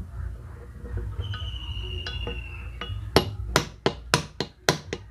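Hammer tapping on metal: a run of quick, sharp, ringing strikes, about three a second, starting about three seconds in after a low background rumble.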